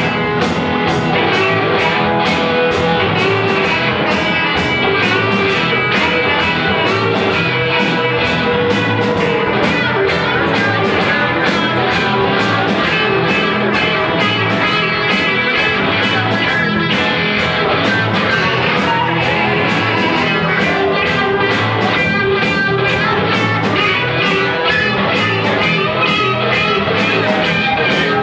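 Live rock band playing, led by guitar over a steady drum beat.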